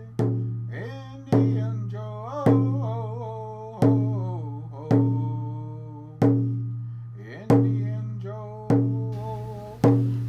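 Intro music: a slow, steady drum beat, about one strike every second, each ringing out, with a singing voice over it.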